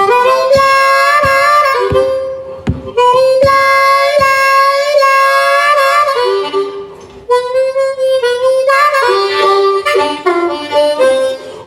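Solo blues harmonica playing a riff of held notes, some bent in pitch, with a short break about two-thirds through. A regular sharp knock keeps time through the first half.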